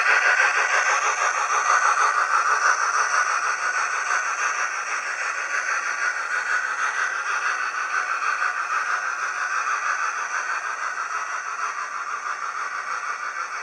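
OO gauge model train running on its track, heard from a camera riding on a low wagon in the train: a steady rattle and rumble of small wheels on the rails.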